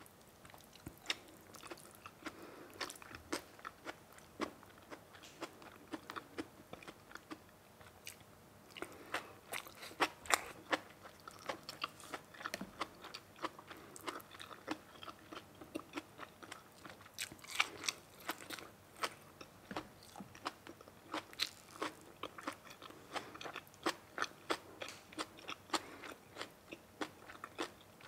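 A person biting and chewing crunchy food, a steady run of irregular short crunches.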